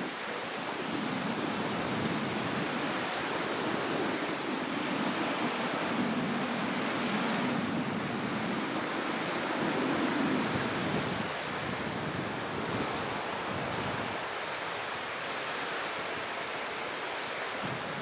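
Small Black Sea waves breaking and washing up on the shore: a steady rush of surf that swells and eases, strongest around the middle and softer in the last few seconds.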